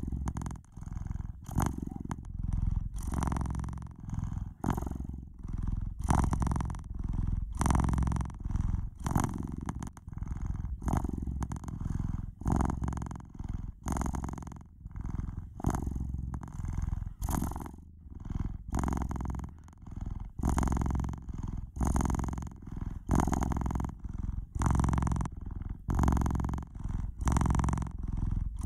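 Domestic cat purring steadily and noisily, a low rumble that swells and breaks briefly about one to two times a second.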